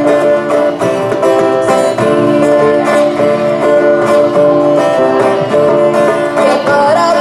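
Greek folk dance music played live by a small band: plucked strings keep a steady beat under a held melody line, which turns ornamented and wavering near the end.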